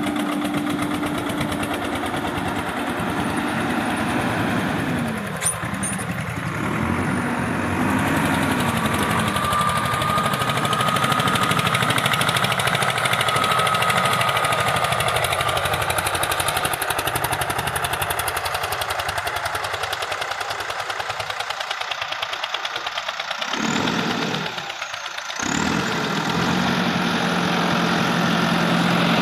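Diesel engine of heavy farm or construction machinery running steadily, its note shifting a little, with a brief change in sound about three-quarters of the way through.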